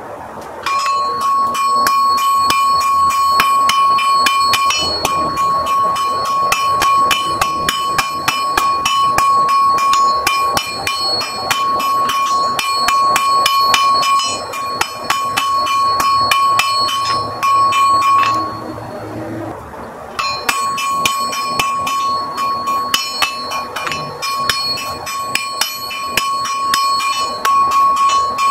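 Blacksmith's hammer striking a red-hot iron bar on an anvil in rapid, regular blows, each with the anvil's ringing tone, sped up to double speed. The blows stop for about two seconds about two-thirds of the way through, then start again.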